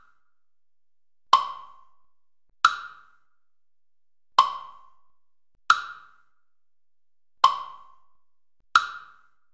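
Tick-tock of a clock-show soundtrack: six sharp wooden clacks that alternate higher and lower in pitch, spaced about one and a half seconds apart in an uneven tick-tock rhythm, each with a brief ringing tail.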